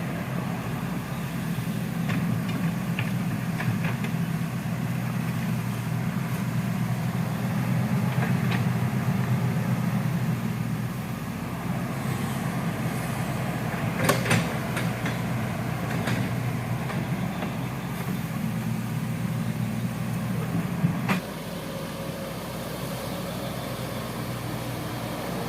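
Hitachi hydraulic excavator's diesel engine running steadily while digging a ditch, with a few sharp knocks along the way; after the loudest knock, about three-quarters of the way through, the engine note settles a little lower and quieter.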